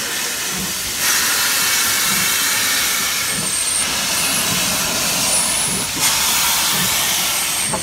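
Steam locomotive 140.C.38, a French 2-8-0, standing with steam hissing out low at its front end. The loud, steady hiss steps up about a second in and again near six seconds in.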